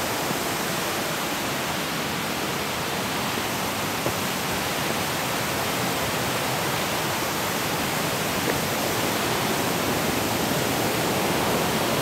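Waterfall cascading down rocks: a steady, even rush of falling water.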